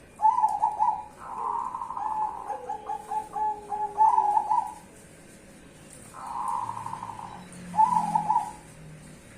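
Zebra dove (perkutut) of the black Bangkok 'cemani' strain singing its rolling, trilled cooing song. A long phrase of about four and a half seconds is followed, after a pause, by two shorter coo phrases.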